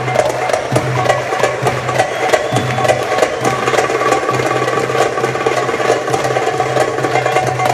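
Darbuka (goblet drum) played in a fast, dense run of strokes along with pitched musical accompaniment.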